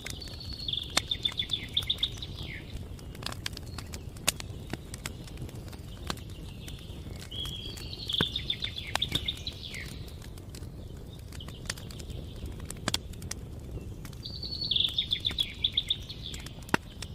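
A songbird sings a short trilled phrase three times, about seven seconds apart, over a steady low rumble. Sharp single crackles, like burning wood, are scattered throughout.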